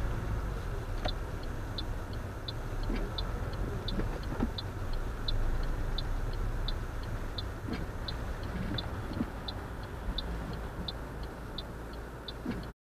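Car's turn-signal indicator ticking steadily, about three clicks a second, over the low drone of the engine and road inside the cabin. The sound cuts off suddenly near the end.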